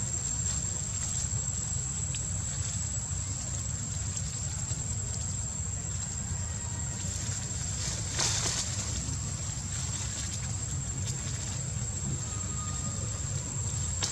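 Outdoor ambience: a steady low rumble and a constant high thin whine, with a short crackling rustle about eight seconds in, as a baby macaque moves through the branches and leaves.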